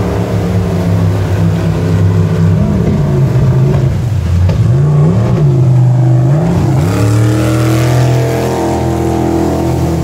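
Racing jet boat's engine running hard through river rapids, its revs dipping and climbing back twice, then holding steady and high.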